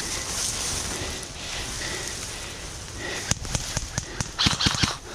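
Dry grass and gear rustling as a player crouches and pushes through tall grass, with a run of knocks and a short breathy rush of noise about three to four seconds in.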